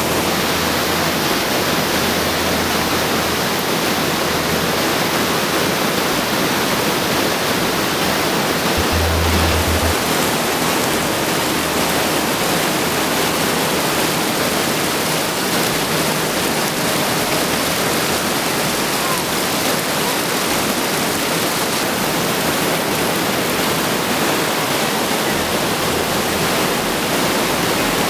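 Rocky forest stream rushing over a small cascade, a steady whitewater rush.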